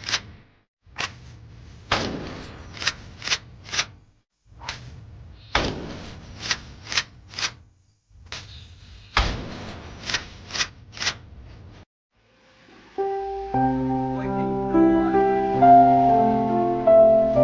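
A knock followed by three or four quick sharp clicks, repeated four times at even spacing about every three and a half seconds. After a short silence, gentle keyboard music starts about thirteen seconds in.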